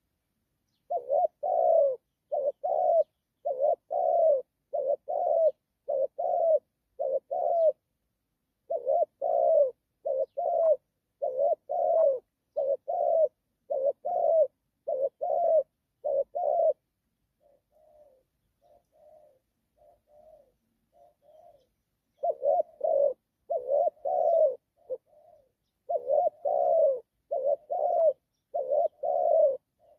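Spotted dove cooing repeatedly, in phrases of short low notes. Near the middle the coos drop to a faint run for a few seconds before the loud cooing starts again.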